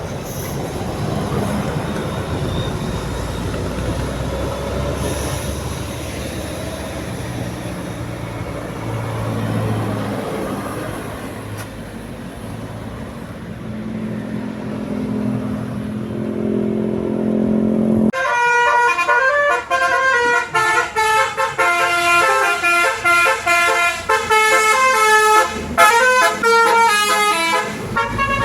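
A bus engine and road noise, the engine growing louder near the two-thirds mark. About 18 seconds in, a bus's telolet Basuri horn starts abruptly, playing a fast melody of many stepped, pitched horn notes.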